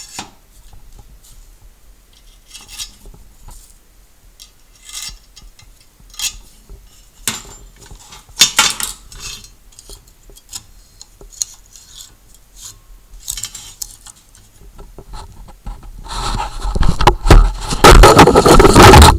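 Metal parts clinking, tapping and scraping in short scattered knocks as crimpers are swapped in the bracket of a home-made pneumatic crimping machine. Near the end a loud rushing noise runs for about three seconds.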